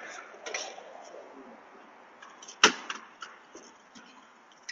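A single sharp smack about two and a half seconds in, heard through a security camera's thin-sounding microphone, with faint indistinct voice sounds in the first second.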